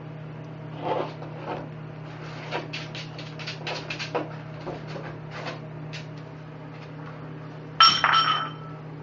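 Pet food and water bowls clattering as they are knocked over and spilled: a string of small clicks and clinks, then, about a second before the end, a loud ringing clang. A steady low hum runs underneath.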